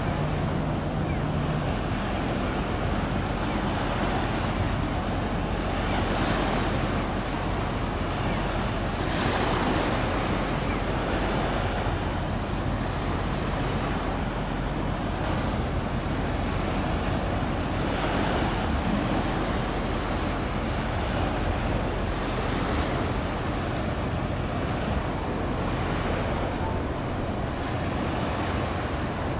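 Wind buffeting the microphone over the wash of water in the strait, swelling and easing in gusts, with a low steady hum underneath.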